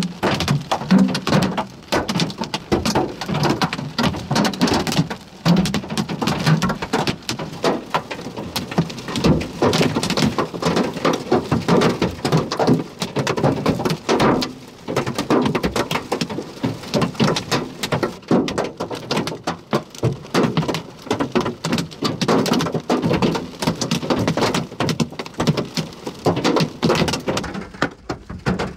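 Hail and rain pelting down in a severe thunderstorm: a dense, irregular clatter of hailstone strikes over the hiss of rain.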